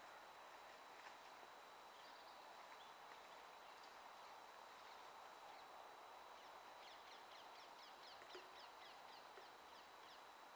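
Near silence: faint outdoor background hiss. About two-thirds of the way in, a small bird gives a quick run of short, falling high chirps, about five a second, for some three seconds.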